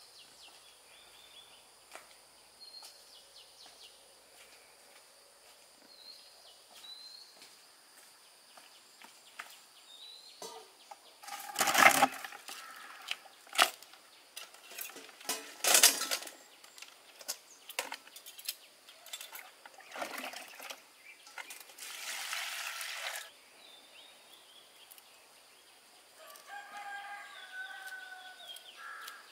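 Quiet outdoor background with small birds chirping, broken by a few loud, sudden rustles and knocks from handling a woven basket of prawns, and a noisy stretch of about a second in the middle. Near the end a bird calls several times.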